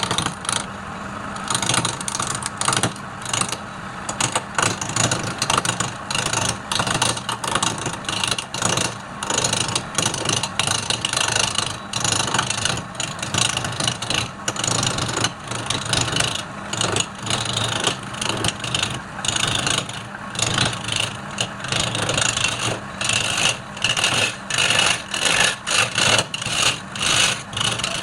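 Woodturning lathe running with a steady motor hum while a turning tool cuts the spinning wood, the cutting noise coming and going in short, irregular bursts.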